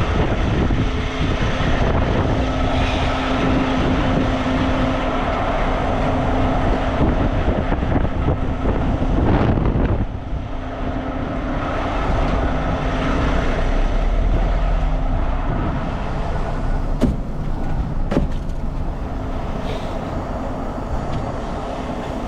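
Wind buffeting the microphone over the steady hum of a running semi truck, with two sharp clicks about a second apart late on.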